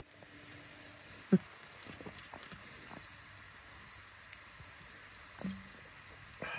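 Quiet outdoor background with scattered faint clicks and ticks, a short sharp knock about a second in and a softer one a little past halfway.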